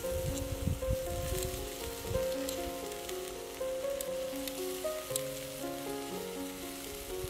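Marinated pork slices sizzling on a wire grill over charcoal, with occasional sharp crackles, under background music playing a melody of steady notes.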